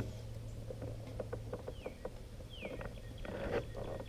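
Light scattered taps and rustles of a smallmouth bass being handled on a plastic fish-measuring board, with a brief louder rustle near the end. Two short falling chirps sound in the middle.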